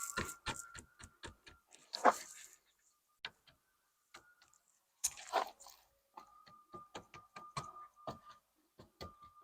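An irregular series of light knocks and clicks, several a second in places, with a louder knock about two seconds in, and a faint steady high tone under parts of it.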